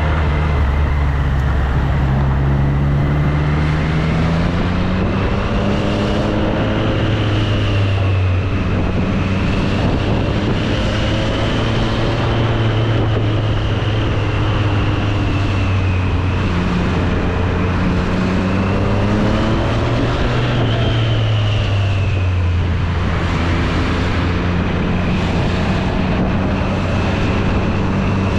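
Triumph Street Triple 765 RS's inline three-cylinder engine running while the bike is ridden, its pitch rising several times as it accelerates and dropping back between pulls, over a steady rush of noise.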